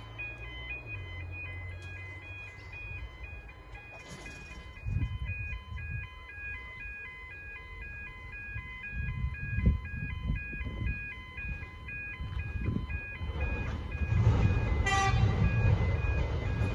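Railway level-crossing warning bell ringing, a fast steady repeating pattern of electronic tones. Near the end, the noise of a Metro X'Trapolis electric train approaching grows louder.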